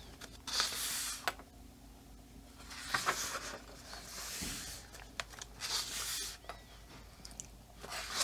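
Paper pages of a softcover coloring book being turned one after another, a short rustle about every two and a half seconds.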